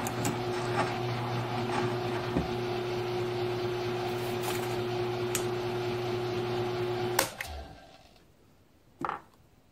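Grizzly G1007 mill-drill running with a steady hum as a twist drill bores 6061 aluminum bar. About seven seconds in there is a sharp click and the running sound dies away within about a second. A single short knock follows near the end.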